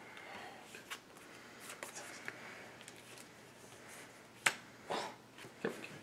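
Trading cards being handled on a playmat: faint rustles and light taps as cards are picked up, sorted in the hand and set down, with a sharp click about four and a half seconds in and a few softer taps after it.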